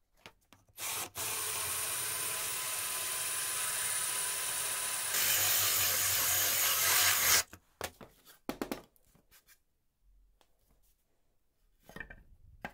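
Cordless drill spinning a toothed hole saw through plywood: steady cutting that starts about a second in, grows louder and brighter about halfway, and stops abruptly. A few light knocks and rustles of handling follow.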